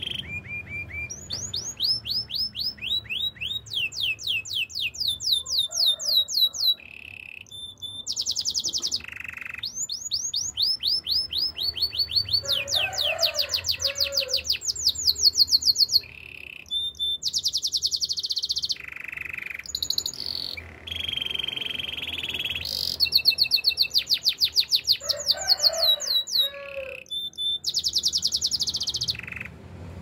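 Domestic canary singing a long, continuous song: rapid trills of quickly repeated falling notes, switching to a new trill every few seconds, with short steady held notes between them.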